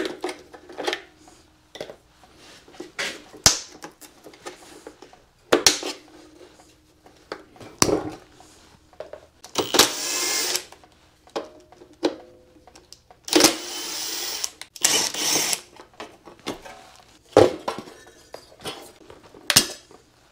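A cordless driver runs in two short bursts about halfway through, backing out the bolts of the engine's cover shroud. Around them come scattered clicks and knocks of tools and loosened plastic covers being handled.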